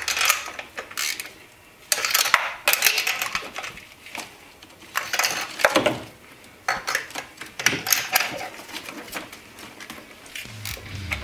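Metal tools clinking and clicking in short bursts: a spark plug socket on an extension knocking against the engine as new spark plugs are threaded into the cylinder heads of a Coyote 5.0 V8.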